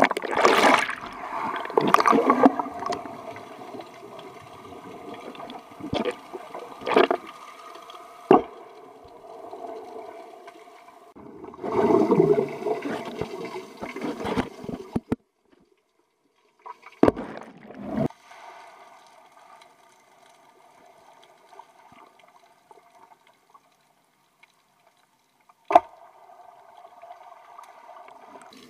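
Swimming pool heard underwater through a submerged action camera: muffled splashing and a loud rush of bubbles at the start and again about twelve seconds in, as a person plunges in. Several sharp knocks come between, and the sound cuts out twice.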